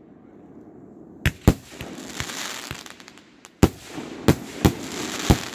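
Pyro King 16-shot Pyro Overdrive 500-gram firework cake firing and bursting its aerial shells: six sharp bangs, a close pair about a second in and four more from past halfway, with crackling between them as the stars break.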